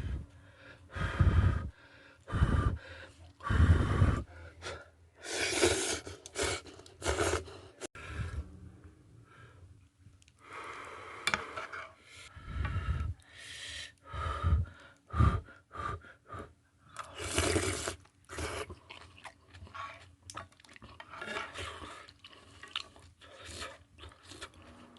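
A person eating kimchi ramen: repeated short, noisy slurps of noodles and broth, one every second or so, with pauses between.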